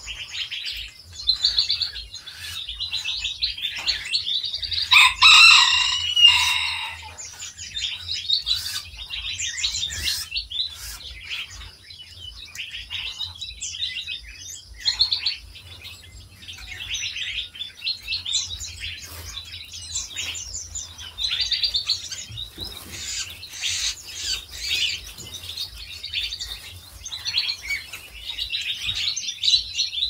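Many small aviary songbirds chirping and twittering continuously. About five seconds in there is one louder, drawn-out call lasting about two seconds.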